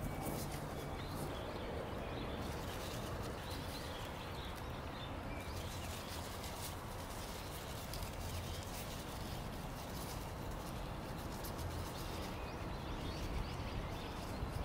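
Dry, dead katsura leaves crinkling and crackling as hands press them into a glass jar, many small crackles over a steady low background rumble.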